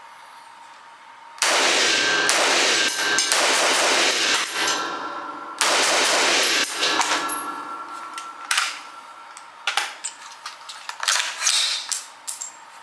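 G36-style semi-automatic rifle fired indoors: a string of shots in quick succession starting about a second and a half in, a short pause, then another string that echoes and dies away. A few sharp metallic clicks and clanks from handling the rifle follow near the end.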